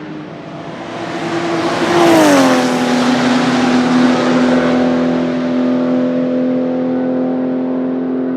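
Porsche 935 K3 racing car's turbocharged flat-six passing at speed. The engine note rises as it approaches and is loudest about two seconds in, then drops sharply in pitch as the car goes by and holds a steady note as it pulls away.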